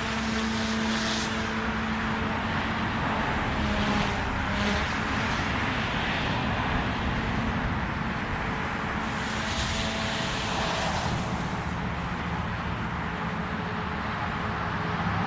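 OMP Hobby M2 electric RC helicopter in flight: its brushless motor gives a steady whine that shifts in pitch a few times, over the whoosh of the spinning rotor blades.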